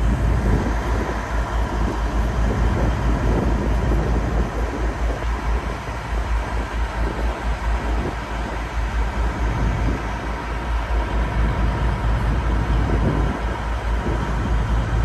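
Tour boat under way on a river: a steady engine rumble mixed with wind buffeting the microphone, with a faint steady whine throughout.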